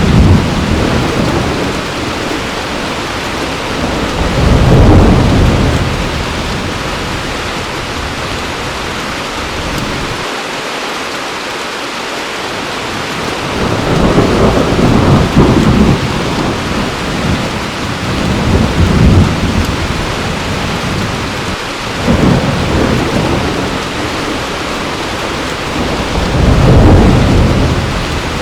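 Heavy rain falling steadily, with low rolls of thunder swelling and fading about six times, every few seconds.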